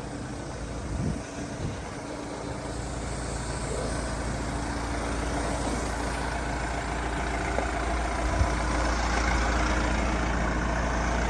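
A van's engine idling steadily, a low rumble that grows gradually louder.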